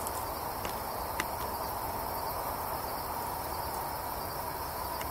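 A steady chorus of night insects, a constant even drone with no change in level, with a faint click about a second in.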